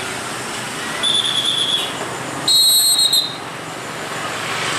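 Two short, high-pitched whistle blasts, one about a second in and a louder, higher one about two and a half seconds in, over steady road traffic noise.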